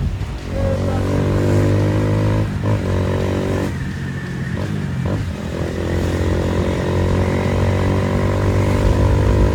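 Honda CG 160 Fan single-cylinder four-stroke motorcycle engine running through an aftermarket Fortuna exhaust. It holds a steady note, which breaks and dips briefly about two and a half seconds in and again around four to five seconds in, then comes back.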